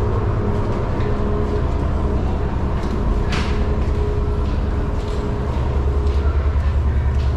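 Steady low rumble and hum of a ferry's engines, heard on board, with a short rushing noise about three seconds in.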